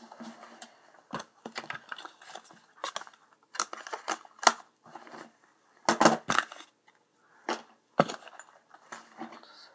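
Handling noise close to the microphone: a string of irregular knocks, taps and rustles as a phone in its case is picked up and moved about, the sharpest knocks coming about halfway through.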